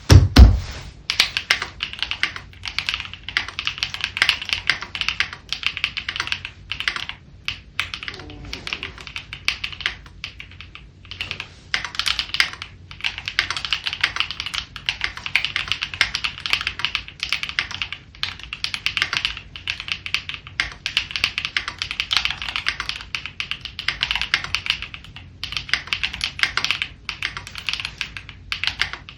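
Typing on a CIDOO V65 V2 mechanical keyboard with Kailh Cocoa linear switches and PBT Cherry-profile keycaps: a fast, steady patter of key strokes in runs separated by short pauses. A single loud low thump comes at the very start.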